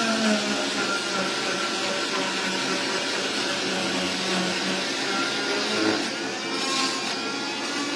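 Oscillating cast saw with a built-in vacuum extraction hose running against a fiberglass cast as it cuts the cast off: a steady motor whine over the rush of suction. The pitch dips and recovers twice.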